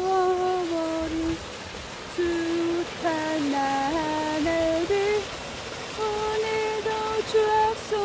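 A woman's voice singing a slow melody of held notes that step up and down, over the faint steady rush of a small mountain stream.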